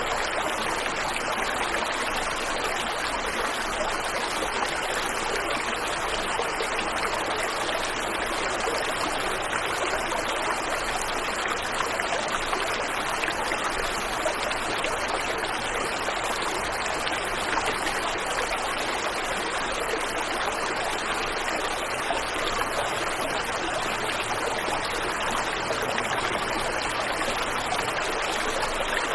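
Waterfall and river water rushing in a steady, even splash with no breaks.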